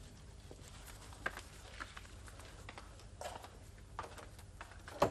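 Scattered footsteps and light taps on a hard floor, with a sharper knock near the end, over a low steady hum.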